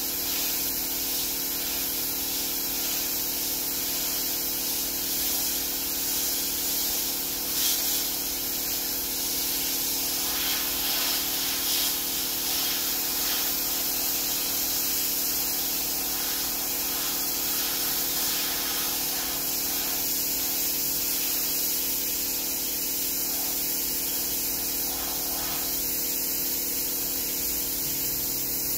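Sandblaster gun blasting abrasive media onto a bare steel truck frame: a steady hiss of compressed air and grit, with a steady hum underneath.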